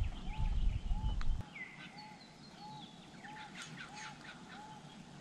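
Wild birds calling: a mix of short chirps and whistles, with a soft note repeating about once a second. A low rumble stops about a second and a half in.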